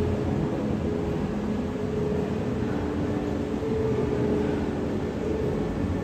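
Steady low rumbling background ambience with a faint, even hum and no distinct events.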